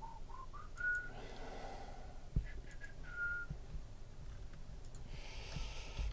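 A man whistling softly to himself: a few short notes stepping upward near the start, then one held higher note a little after three seconds in. A single click, as of a computer mouse, falls between them.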